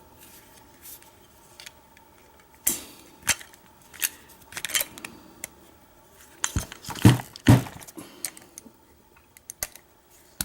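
Sharp metal clicks and clatter as a Kwikset doorknob lock is handled and worked on, with a cluster of louder knocks about seven seconds in.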